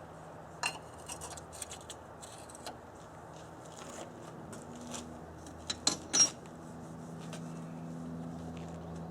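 Scattered light clinks and knocks of small metal objects being handled during engine servicing, with two sharper clacks about six seconds in, over a faint steady low hum.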